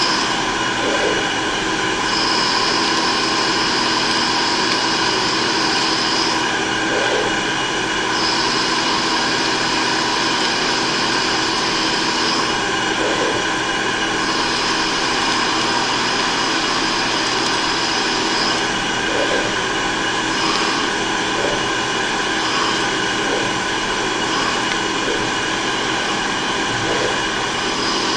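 CNC machine tool running with a steady machine hum and whine. A high-pitched tone sounds in three stretches of about four seconds each, with short breaks between them.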